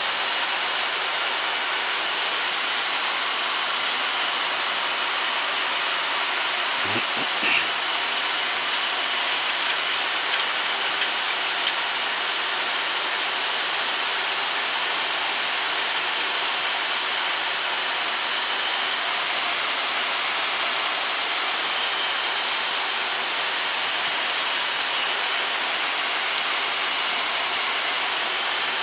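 Steady flight-deck noise of a Boeing 737-800 in descent: an even rush of air over the cockpit, with a few faint clicks between about seven and twelve seconds in.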